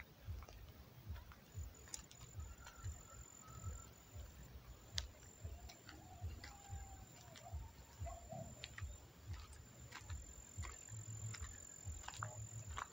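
Quiet rural outdoor ambience with a few faint bird calls, scattered soft low thumps and clicks, and a thin, steady high tone that comes in about two seconds in.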